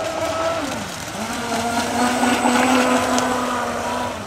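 Electric motor of a radio-controlled Formula 27 model boat whining as it runs on the water. The pitch rises, falls away briefly about a second in as the throttle comes off, then climbs back and holds steady before dropping near the end.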